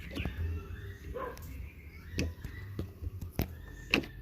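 Scattered sharp clicks and knocks, about six of them, from metal motorcycle fork parts being handled during reassembly.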